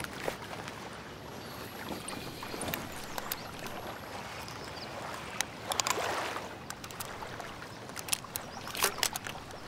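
Small waves lapping steadily at the lake's edge. Scattered sharp clicks and knocks sound over it, with a fuller rustle about six seconds in, as hands handle something wrapped in a quilt.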